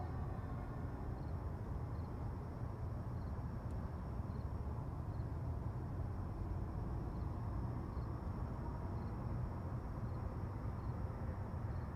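Outdoor morning ambience: a steady low rumble, with a faint steady high-pitched insect drone and faint short chirps repeating about once a second.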